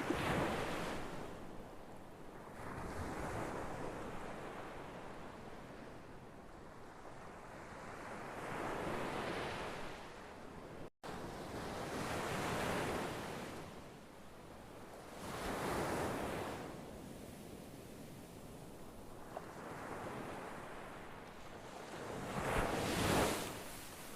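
Ocean surf: waves breaking and washing in, swelling and fading every three to four seconds, with the loudest surge near the end. The sound drops out completely for a split second about eleven seconds in.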